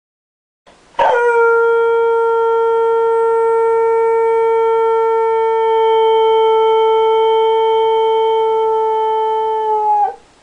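Sheltie hound mix dog giving one long, huge howl, held on a nearly steady pitch for about nine seconds. It starts suddenly about a second in, sags slightly in pitch, and breaks off near the end.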